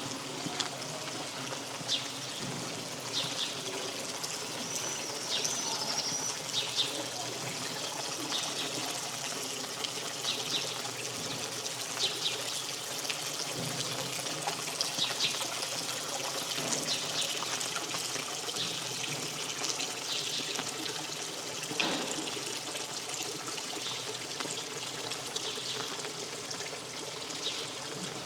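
Steady rain with water trickling and pouring, dotted with scattered sharp drips.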